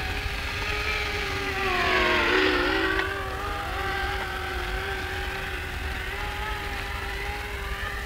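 Potensic Atom SE quadcopter's propellers and motors whining steadily. About two to three seconds in, the whine gets louder and its pitch dips and rises again as the motors change speed.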